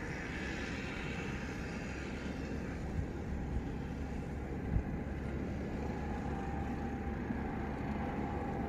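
Steady low rumble of a boat's motor running, with a couple of faint knocks.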